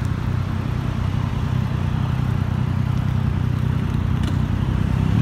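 Steady low rumble of city street traffic, with car engines running.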